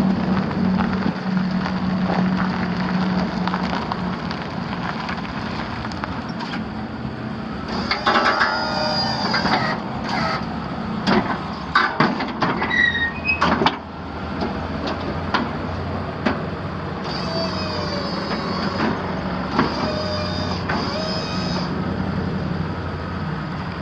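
A Chevrolet 5.7-litre V8 idling steadily, with three bursts of an electric hydraulic-pump whine, each about one and a half to two seconds, as the Boss V-plow is moved. Between the first and second bursts there is a run of clanks and short squeaks.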